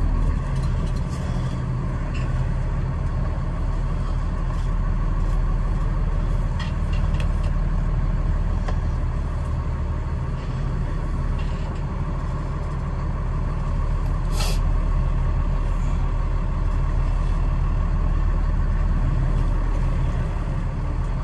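A 26-foot box truck's engine running, heard from inside the cab as a steady low rumble. There is a short hiss about two-thirds of the way through.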